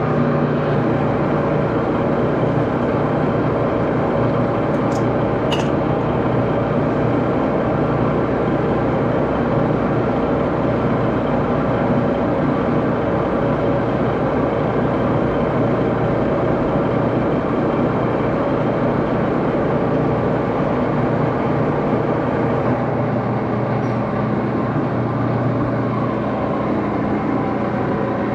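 Axelson metal lathe running steadily, a continuous machine hum and whir with several steady tones.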